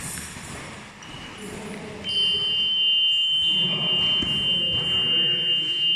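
Boxing round-timer buzzer sounding one long, steady, high tone that starts suddenly about two seconds in, marking the end of the sparring round.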